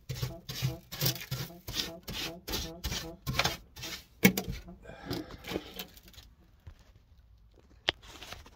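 Hand wire brush scrubbed back and forth over fresh welds on a car's sheet-steel floor tunnel, about three strokes a second. A sharp knock about four seconds in, after which the strokes slow and stop about two seconds later.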